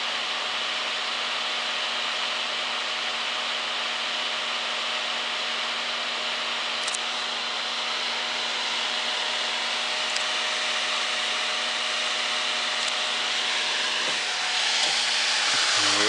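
Pelonis Safe-T-Furnace 1500 W electric fan heater running: a steady rush of air from its fan with a low steady hum under it. Near the end the heater is picked up and turned, and the rush gets louder.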